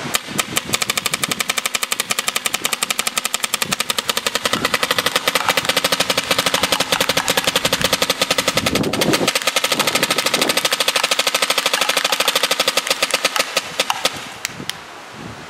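Dangerous Power M3-A1 paintball marker firing in a long, rapid automatic stream of shots lasting about fourteen seconds, with a couple of last shots just after it stops.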